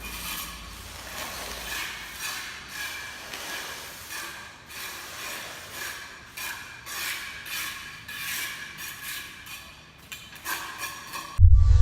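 Repeated scraping and clattering strokes from concrete work, roughly one or two a second and uneven. Loud music cuts in suddenly near the end.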